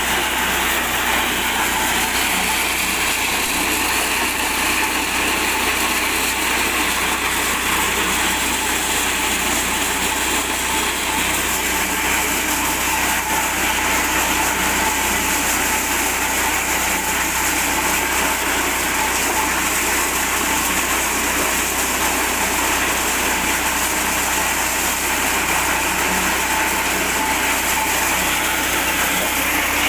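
Small 8 hp Alkon petrol engine running steadily, driving a mini corn sheller.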